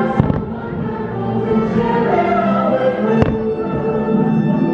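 Fireworks show soundtrack with a choir singing over orchestral music, and two fireworks bursts, one just after the start and one about three seconds in.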